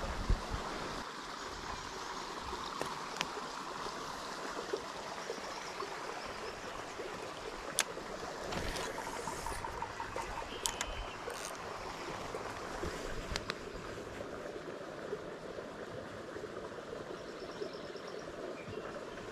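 Water from a small creek spillway, running in a steady, even rush, with a few sharp clicks in the middle.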